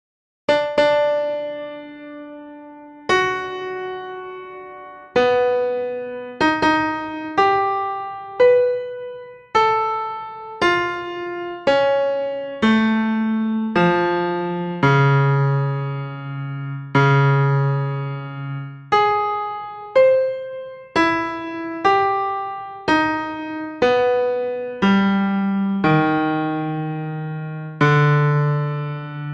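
Solo keyboard music with a piano-like sound: slow chords struck one at a time, each ringing out and fading before the next, with no drums or voice.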